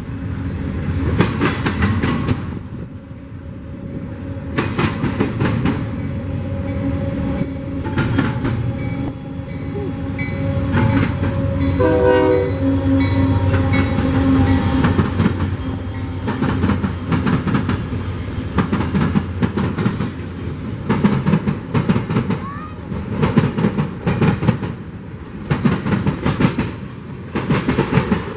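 Union Pacific freight train rolling past with a steady rumble, its wheels clacking over rail joints throughout. About halfway through there is a short pitched blast, likely from the horn.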